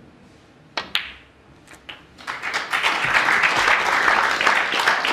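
A sharp click of snooker balls striking, then audience applause starting about two seconds in, building quickly and continuing as a pot is acclaimed.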